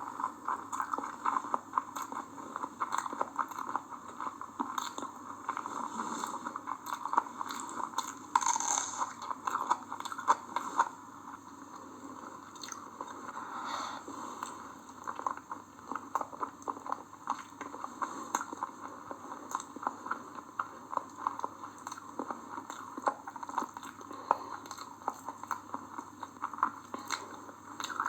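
A person chewing and biting through a meal of chicken biryani and chicken leg-piece curry, with a steady run of many quick mouth clicks and smacks.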